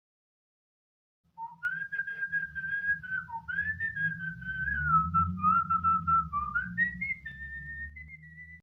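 A person whistling a slow, wavering tune, starting about a second in and climbing higher near the end, over a low rumble.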